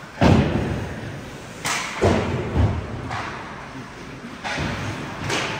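Ice hockey play in an arena: five sharp bangs against the boards, the loudest near the start, each ringing out briefly in the rink.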